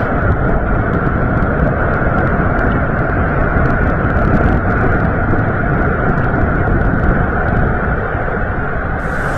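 Loud, steady low rumbling rush of noise with no distinct events, changing character near the end.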